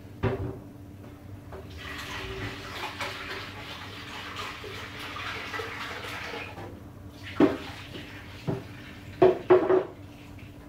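Kitchen tap running into the sink for about five seconds, then four clinks and knocks of dishes or pots being handled.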